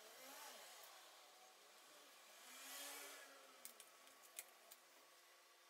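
Quiet handling noise from a screwdriver and thin display wiring being worked on a laptop LCD panel: a soft rustle about halfway through, then a few small clicks.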